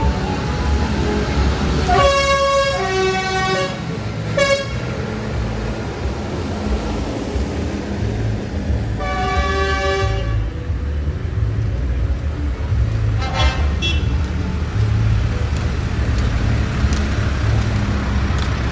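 Diesel engines of light-decked tractors and a lorry in a Christmas tractor run rumbling past, with their horns tooting four times: a blast of about a second and a half near the start, a short toot, a longer blast near the middle, and a fainter short toot after it.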